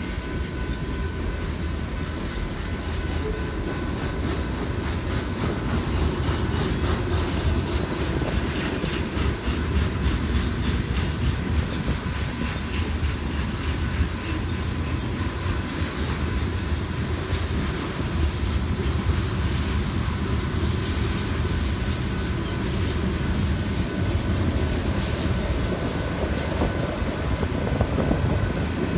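BNSF freight train passing through a grade crossing: a string of boxcars, tank cars and covered hoppers rolls by with a steady rumble, its wheels clicking over the rail joints.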